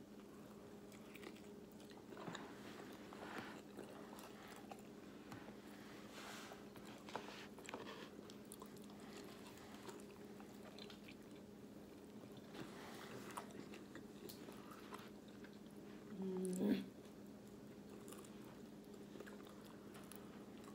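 Faint close-up chewing of honey barbecue chicken wings, with soft wet mouth sounds and small clicks over a steady low hum. A short hummed vocal sound about sixteen seconds in is the loudest moment.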